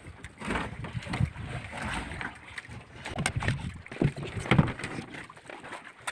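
Scattered knocks, thumps and scraping from a fisherman working by hand in the open fish hold of a boat, with the loudest knocks about four and a half seconds in.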